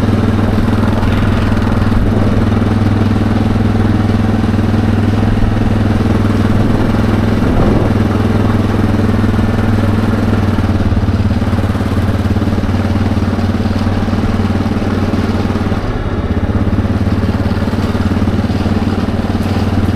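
ATV engine running steadily at a low cruising speed, heard from the machine as it rides. Its note holds even, easing off briefly about sixteen seconds in.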